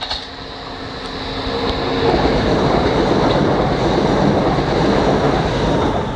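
Networker electric multiple unit approaching and passing close by: the noise of its wheels on the rails builds over the first two seconds to a steady loud rush with a thin high tone over it, then drops away near the end as the last carriage passes.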